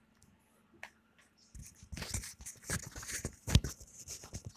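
Faint scattered clicks and rustling, starting about one and a half seconds in, with a sharper click about three and a half seconds in.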